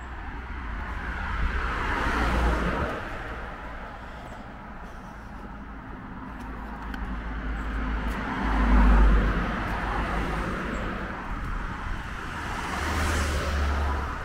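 Cars passing one after another on the road, their tyre and engine noise swelling and fading three times, loudest about nine seconds in. Traffic on this road is heavier than usual because roadworks have diverted it this way.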